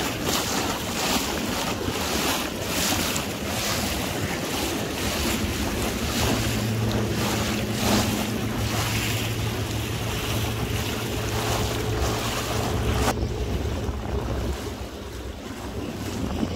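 Wind buffeting the microphone and lake water slapping and splashing against the hull of a small inflatable boat under way through choppy water and a wake. A steady low hum joins partway through, and the wind noise eases about thirteen seconds in.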